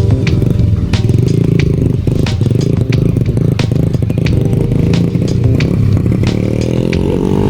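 A motor vehicle engine, likely a motorcycle, running close by: a steady low drone with many sharp clicks and clatter through it.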